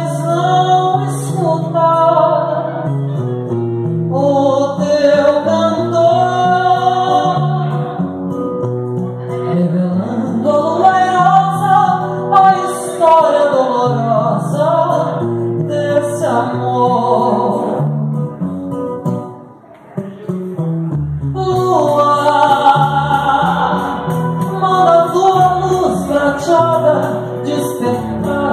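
Live seresta: a woman singing a slow ballad into a microphone over acoustic guitar accompaniment, with a brief pause in the music a little before two-thirds of the way through.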